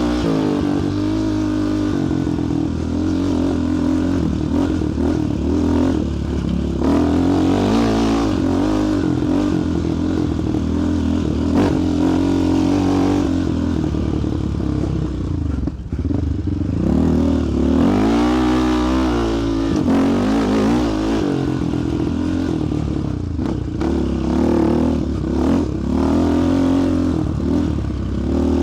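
Single-cylinder four-stroke sport quad engine being ridden, its pitch repeatedly climbing and dropping as the throttle is worked, with some clatter over rough ground.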